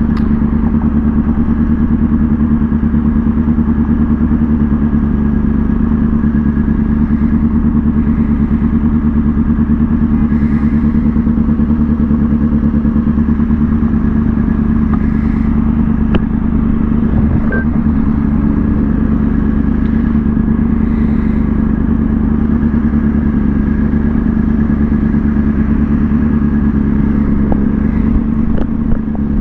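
Kawasaki ZX6R's inline-four engine running at a steady, unchanging pitch.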